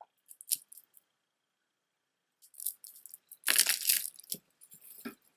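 Beaded jewelry being handled, glass beads and stones clicking against each other: a few light clicks, then a louder clatter of beads about three and a half seconds in, and another click or two near the end.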